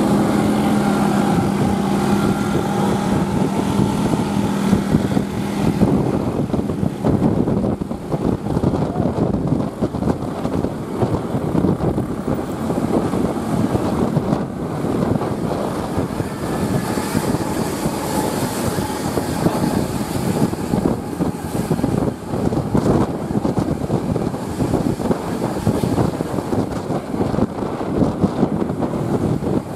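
Diesel intercity bus with a loud "ngorok" growling exhaust running. A steady engine hum in the first few seconds gives way to a rough, fluctuating rumble that goes on throughout.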